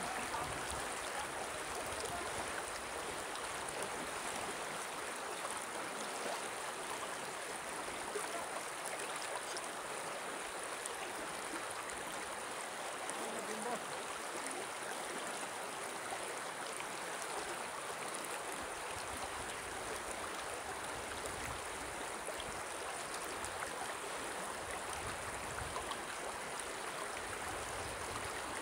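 Shallow river running over a stony bed, a steady rushing.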